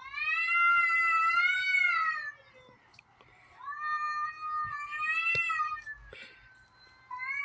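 Cat yowling: three drawn-out calls with a wavering pitch. The first two each last about two seconds, and the third starts near the end.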